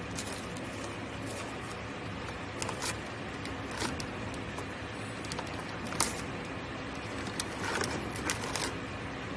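Paperboard tissue box being handled and its perforated top torn open: scattered sharp clicks and crackles, the loudest about six seconds in and a quick run of them near the end, over a steady background hum.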